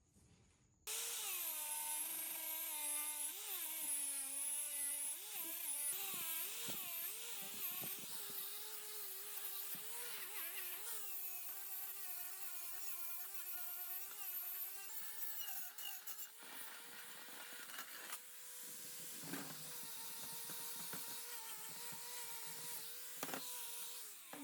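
Electric power tool starting abruptly and running with a whine whose pitch dips and wavers as it bites into the work, then settles into a steady whine in the second half, with a couple of short knocks near the end.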